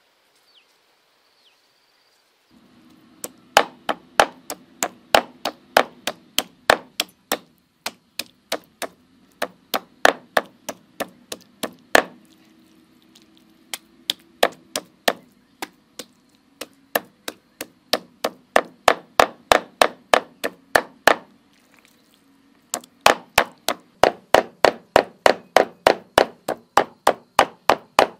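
Large kitchen knife chopping raw pork on a thick round wooden chopping block, mincing it by hand. The strikes come steadily at about three a second after a couple of quiet seconds, with a short pause about 22 seconds in.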